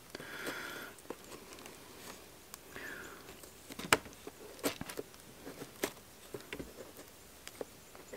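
Small knife paring the thick stem of a large black bolete mushroom: faint scraping cuts with a few sharp clicks at irregular intervals.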